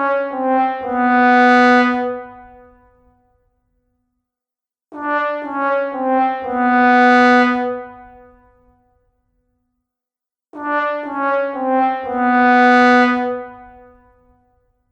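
Sad trombone 'wah-wah-wah-waah' effect, the comic cue for failure: a brass instrument plays short notes stepping down in pitch, then holds a long, lower final note that fades away. The phrase plays three times, about five and a half seconds apart.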